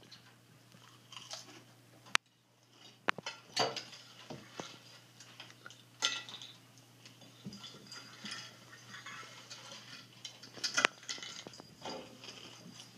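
People chewing and crunching food eaten with their fingers, with scattered sharp clicks and knocks from the plates on a wooden table, the strongest about two, three, six and eleven seconds in.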